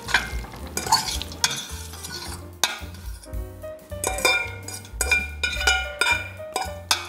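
Cooked fettuccine being tipped from a stainless steel pot into a pan of cream sauce, a utensil clinking and scraping against the metal pot and pan, with wet pasta sliding and stirring. A background music track with a steady bass line plays under it.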